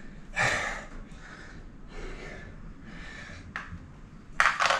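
A man breathing hard, out of breath after several hundred strokes of a hand tyre pump: a few heavy breaths, the loudest just before the end, with a small click shortly before it.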